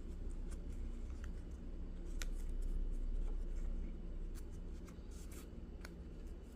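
Dry pandanus leaf strips rustling and scraping softly against each other as they are woven and pulled tight, with a few faint crisp ticks.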